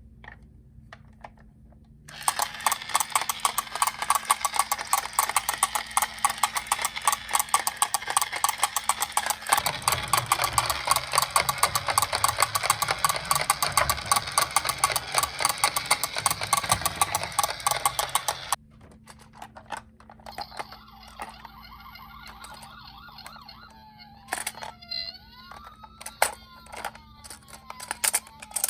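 Toy ambulance minicars rattling and clicking rapidly and densely for about sixteen seconds. After a pause, near the end, a toy electronic siren wails up and down several times among a few clicks.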